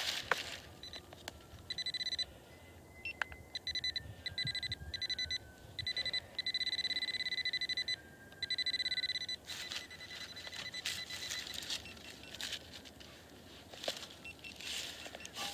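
Electronic metal-detector beeping: a high, steady tone sounding in short runs, then a fast stuttering beep for a few seconds before it stops, as a buried target is pinpointed. Faint rustling and scraping of leaves and soil follows.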